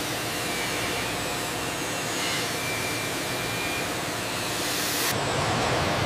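Steady rushing hiss of factory air and machinery, with a faint high whine now and then. About five seconds in the hiss thins and a deeper rumble takes over.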